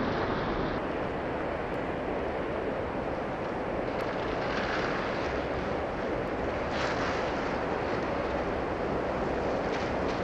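Passing vehicles' tyres hissing on a rain-soaked road in steady rain, with a splash of spray as a pickup truck drives through standing water about seven seconds in, and another as a car splashes through near the end.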